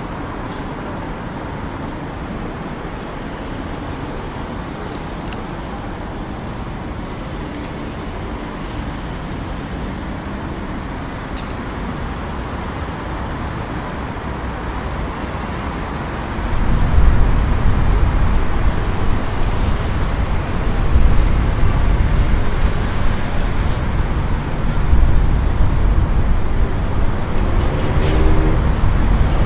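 City street traffic: a steady noise of passing cars that turns louder and heavier, with a deep low rumble, a little over halfway through.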